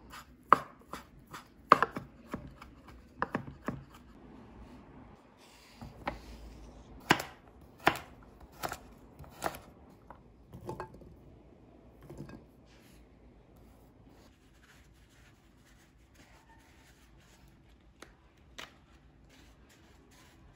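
Knife chopping food on a cutting board: a quick, uneven run of strikes over the first few seconds, then four steady strokes a little under a second apart, then only a few faint, scattered taps.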